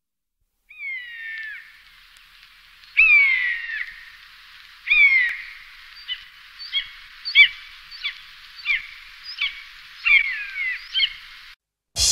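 Common buzzard calling: three long cries that fall in pitch, then a quicker series of about ten short calls.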